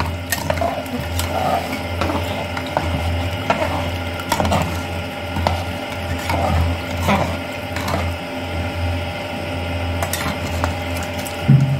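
Metal ladle stirring rajma curry and water in an aluminium pressure cooker: liquid sloshing, with the ladle scraping and clicking against the pot's sides, over a steady low hum.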